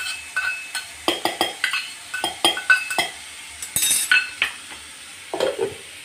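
A steel spoon scraping and clinking against a steel bowl and a steel mixer-grinder jar as soaked mustard seeds are spooned in: a run of short, ringing metallic clinks. Near the end comes a clatter and then a duller knock as the jar is set on the grinder base and its lid fitted, with faint frying underneath.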